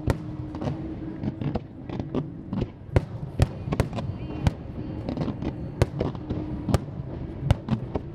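Fireworks display shells bursting in quick, irregular succession: sharp bangs, some louder than others, with smaller crackling reports between them.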